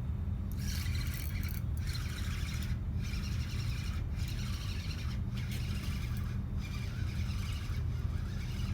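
Wind buffeting the microphone: a steady low rumble, with a hiss that comes and goes about once a second.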